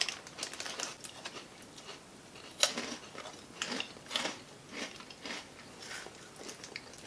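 Chewing and crunching on Cheezels, crisp cheese-flavoured ring snacks, in scattered short crackles; the sharpest crunch comes about two and a half seconds in.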